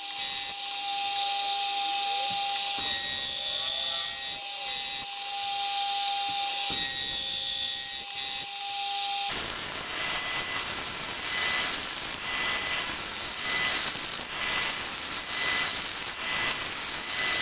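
Milling machine spindle driving a Module 1 gear cutter through a gear blank held in a dividing head. For about the first nine seconds there is a steady motor whine, then it changes abruptly to a rougher rasping cutting sound that swells and fades roughly once a second.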